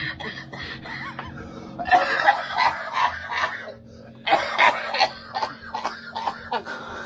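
A man laughing hard and coughing, in two loud fits about two and four seconds in.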